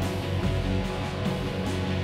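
End-credits music with guitar, playing steadily.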